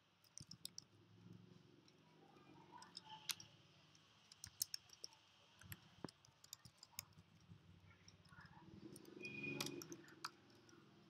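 Faint computer keyboard typing: irregular, scattered key clicks.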